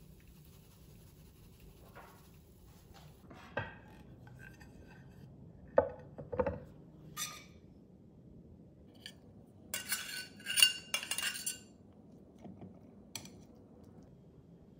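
Metal spatula clinking and scraping against a stainless steel frying pan as a fried egg and a patty are lifted out. There are scattered knocks, two duller ones around six seconds in, then a quick run of bright metallic clinks about ten seconds in.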